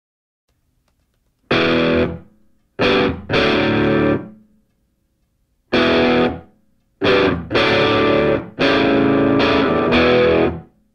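Background music: distorted electric guitar chords, each struck sharply and held for roughly half a second to a second and a half, with short silences between them.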